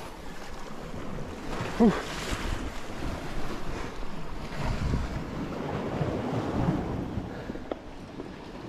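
Sea waves washing and breaking over rocks, with wind buffeting the microphone. A brief pitched sound falls in pitch about two seconds in.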